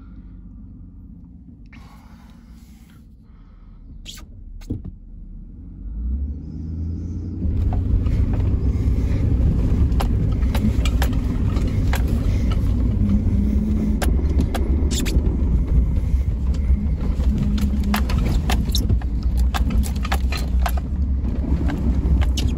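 Pickup truck driving on a snow-covered dirt road, heard from inside the cab: a quiet low rumble at first, then from about seven seconds in a loud, steady rumble of engine and tyres with many knocks and rattles.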